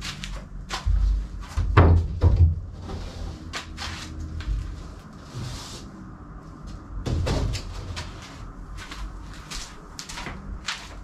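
Wooden knocks and thuds of an OSB board being handled and set against a wall, with the heaviest thumps about two seconds in and again around seven seconds.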